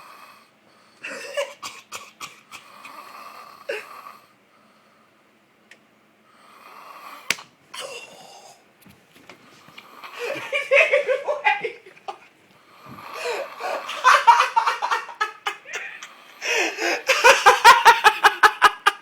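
A man snoring loudly in several long snores, with people laughing over it, the laughter loudest near the end.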